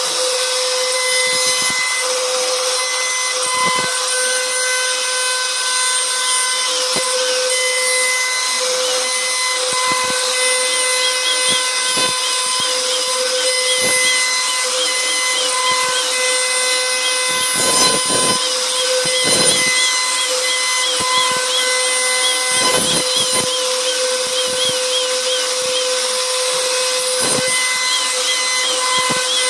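CNC router spindle running at a steady high whine while its bit cuts into a wooden door panel, with the noisy rasp of the cut and a few brief louder swells as the bit moves through the wood.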